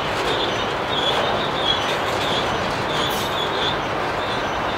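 Empty autorack freight cars rolling slowly past: a steady rumble of steel wheels on rail, with a high wheel squeal that comes and goes every half second or so and dies away near the end.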